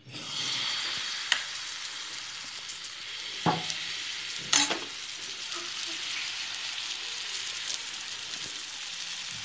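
Gram-flour (besan) omelette batter sizzling in hot oil in a non-stick frying pan, a steady frying hiss from the moment it is poured. A few sharp knocks sound over it, the loudest about three and a half and four and a half seconds in.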